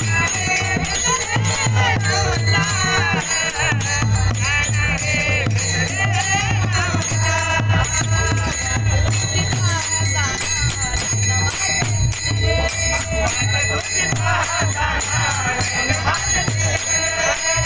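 Marathi devotional kirtan music: a male voice singing with long, wavering melodic lines, over the steady jingle of small hand cymbals (taal) and a pulsing low drum.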